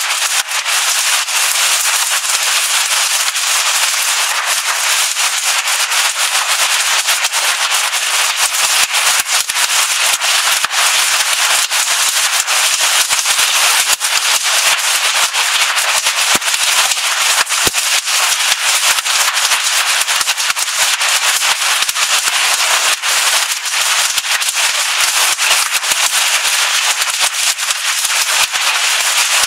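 Hailstorm with rain: a loud, steady, dense clatter of hailstones striking the carport roof and the ground, with countless sharp cracks throughout.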